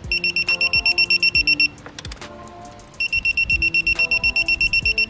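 Craftsman digital torque wrench beeping rapidly, about ten beeps a second, as the bolt reaches the set torque of 86 inch-pounds. There is a short run of beeps, a pause of about a second, then a longer run.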